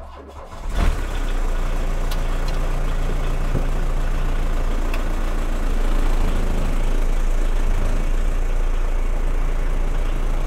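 Mk1 Volkswagen Rabbit/Golf's turbodiesel engine starting up, catching under a second in, then idling steadily. It is heard from inside the stripped cabin.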